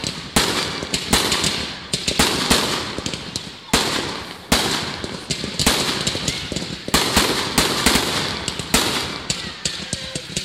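Fireworks barrage firing: shots launching and bursting in rapid, irregular succession, several sharp bangs a second with crackling between them.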